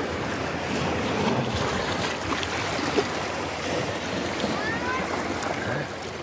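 Seawater washing and swirling among shore rocks: a steady rush of small surf between boulders, with one sharp tap about three seconds in.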